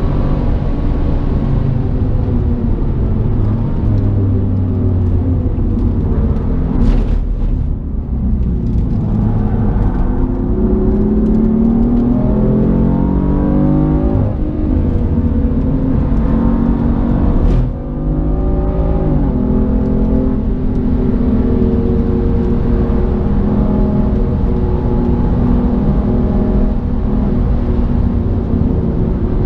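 BMW M4's twin-turbo straight-six engine heard from inside the cabin under hard track driving, the revs climbing and falling as it accelerates and lifts. Two sharp cracks, about 7 and 17 seconds in, each followed by a short drop in level.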